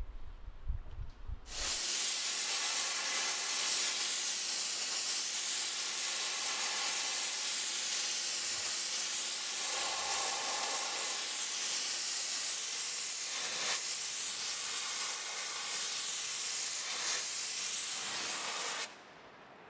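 Kärcher high-pressure cleaner with a wet blasting attachment spraying a water jet carrying sucked-up abrasive onto concrete: a loud, steady hiss that starts suddenly a second and a half in and cuts off abruptly near the end.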